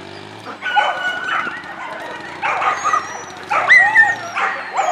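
Dog yipping and whining in short, high-pitched bursts, several in quick succession, loudest about three and a half seconds in: the excited cries of a dog at a lure coursing run.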